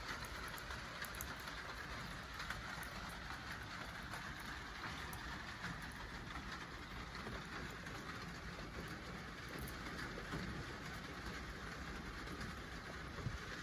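Wood fire burning in a lightweight stainless-steel fire pit: a steady hiss with small crackles and a few sharper pops.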